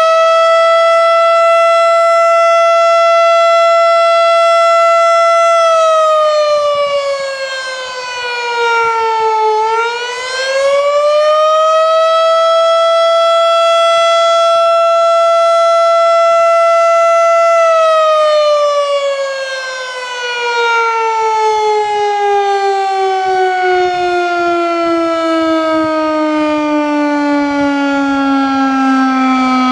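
Federal Signal STH-10A three-phase, single-tone electromechanical fire siren sounding loudly on an attack signal. It holds a steady tone, dips in pitch and climbs back about ten seconds in, holds again, then from about eighteen seconds on slides slowly down in pitch as it winds down.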